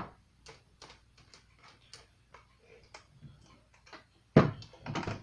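A scatter of light clicks and taps, with a loud knock about four seconds in and another shortly after, like tools or objects being handled and set down on a workbench.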